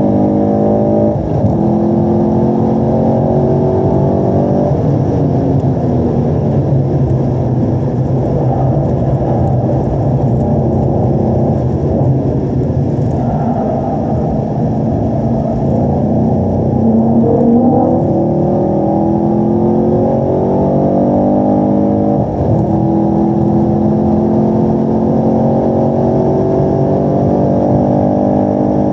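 A 2018 Camaro SS 1LE's 6.2-litre V8 at full throttle, heard from inside the cabin on a race lap. The revs climb with an upshift about a second in, then fall as the car brakes and downshifts for a slow corner, stay low and steady through it, then climb hard again with upshifts about three-quarters of the way through and just before the end.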